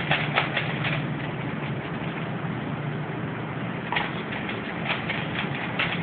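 Rubik's Cube layers being turned by hand: runs of quick plastic clicks in the first second and again from about four seconds in, with a pause between, over a steady low hum.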